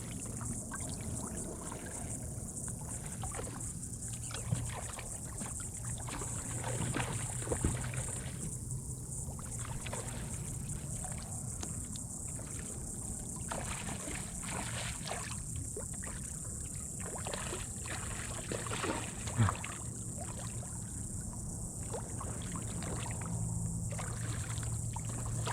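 Water lapping and small splashes around a kayak, over a steady high hum of insects, with two brief knocks against the boat.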